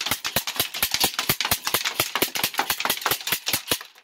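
Hand-cranked 3D-printed plastic disc Gatling gun firing disc after disc: a fast, even run of sharp plastic clicks, about eight to ten a second, that stops abruptly near the end.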